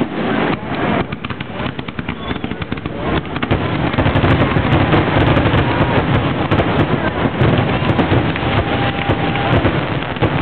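Fireworks display: aerial shells bursting with rapid crackling and popping. About four seconds in it turns into a louder, continuous barrage of bangs and crackle.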